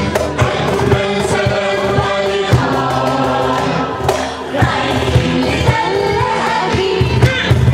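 A live band performing an Arabic song: several voices sing together in chorus over a steady hand-drum beat and accompanying instruments.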